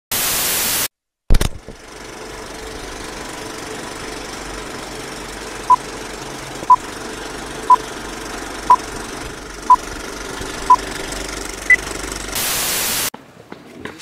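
Film countdown leader sound effect. It opens with a burst of TV static and a sharp click, then a steady old-film hiss with a short beep every second, six at one pitch and a seventh higher. It ends with another burst of static.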